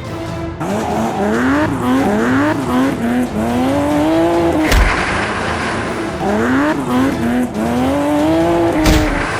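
Car engine sound effect accelerating through the gears: the pitch climbs, drops and climbs again several times. The run plays twice, each ending in a short thump.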